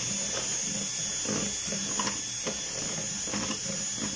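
Electric hand mixer running steadily, its beaters whisking beaten egg whites in a plastic bowl, with a high motor whine and irregular clicks as the beaters knock against the bowl.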